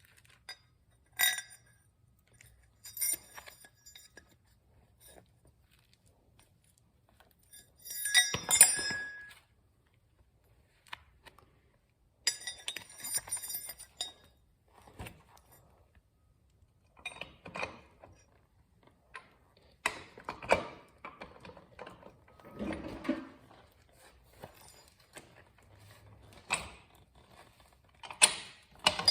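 Metal parts and tools being handled while refitting a motorcycle rear wheel: scattered ringing metallic clinks in the first half, then duller knocks and scrapes.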